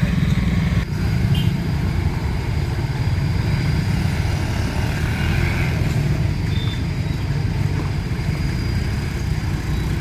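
Vehicle engine running steadily with traffic noise around it.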